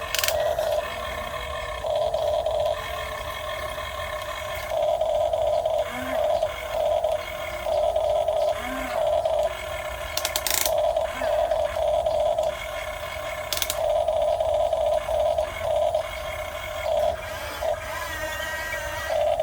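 Electric gear motors of a Huina 1550 RC excavator whining in short spells, starting and stopping again and again as its functions are worked, with a few sharp clicks.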